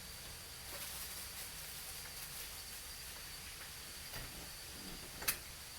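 Background ambience between the cats' calls: a steady high-pitched whine with faint hissy noise, a couple of soft knocks, and one sharp click about five seconds in. No clear yowl.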